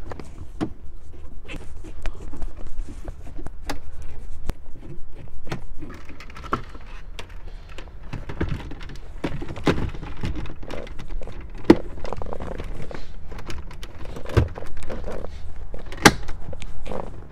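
Plastic dash trim and a radio chassis being handled and pressed into a Jeep Grand Cherokee dashboard: irregular knocks, rustling and clicks, with a few sharp snaps as the trim bezel is pushed home, the loudest near the end.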